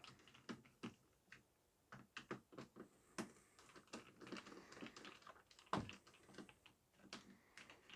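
Faint, scattered light clicks and taps of a small Phillips screwdriver unscrewing the screws from a Dyson cordless vacuum's plastic battery housing, with one louder knock just before six seconds in.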